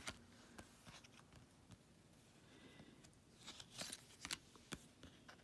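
Near silence with a few faint clicks and rustles of paper trading cards being handled and flipped through, a small cluster of them near the end.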